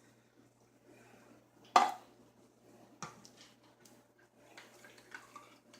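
Kitchen handling noise as soup cans and utensils are readied. A sharp metallic clank comes just under two seconds in, a softer knock about a second later, then small scattered clicks and rattles.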